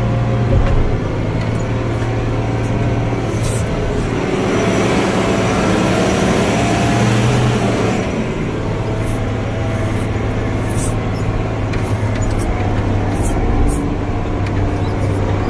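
Off-road truck's diesel engine running while driving, heard from inside the cab: a steady low drone that swells for a few seconds near the middle, with scattered rattles and clunks from the cab over rough ground.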